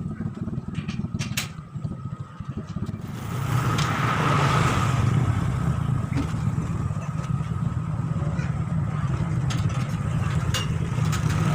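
A small engine running steadily, growing louder about three seconds in and then holding.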